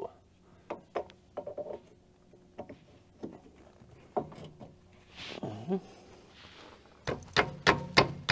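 Metal parts of a new front wheel bearing hub clinking and knocking as it is worked over the drive shaft and onto the steering knuckle. A quick run of sharper clicks comes near the end.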